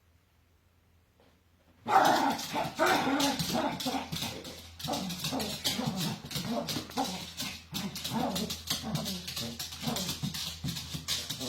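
Pet animal making rapid, repeated vocal calls that bend up and down in pitch. They start suddenly about two seconds in, after near silence.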